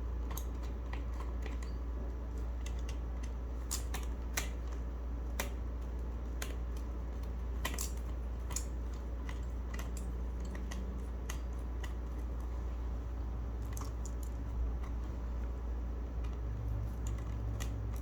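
Irregular sharp plastic clicks and taps from a Gamakay K61 mechanical keyboard being handled and taken apart, over a steady low hum.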